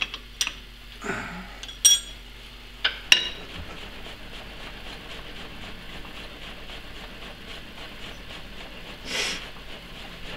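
A few sharp metallic clinks and knocks in the first three seconds as steel parts of a lathe setup are handled, then a faint steady background noise with a soft swell near the end.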